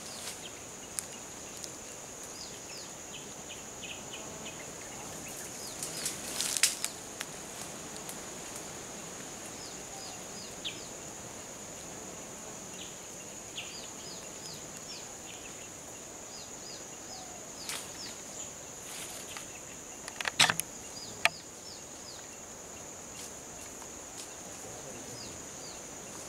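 Forest ambience: a steady high insect drone with many short, quick bird chirps over it. A few sharp snaps cut through, the loudest about a quarter of the way in and again about three-quarters in, likely twigs or branches breaking.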